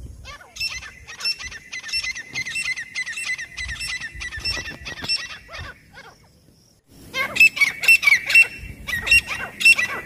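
Grey francolins calling: a rapid run of repeated shrill, ringing notes, about three a second. They break off about six seconds in, then resume as a louder, denser burst near the end.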